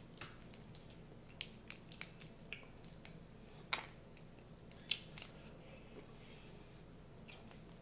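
Boiled snow crab leg shells cracking and snapping as they are broken apart by hand, in scattered sharp clicks with a run of louder cracks around the middle.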